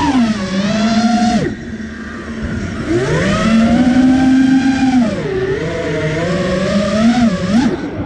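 FPV quadcopter's motors whining, close to the onboard camera. The pitch rises and falls with the throttle: a sharp drop about a second and a half in, a climb back up, and a quick dip and surge near the end.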